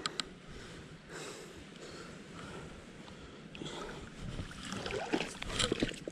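Faint water sloshing and lapping, with a few light knocks and clicks, busier near the end.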